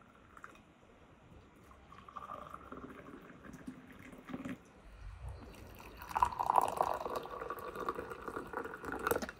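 Hot tea poured into glass tea glasses and mugs, a thin stream splashing into the liquid as each glass fills. The pour grows louder about six seconds in and stops suddenly near the end.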